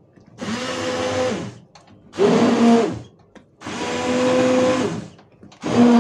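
Hand-held immersion blender pulsed on and off four times, each pulse about a second long, its motor whine rising as it spins up and falling as it stops, while it purées pumpkin and taro soup in a steel pot.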